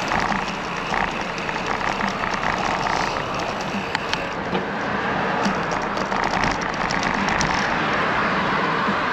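Steady rush of wind and tyre noise on a bicycle-mounted camera riding along a paved road, with many light clicks and rattles from the bike throughout.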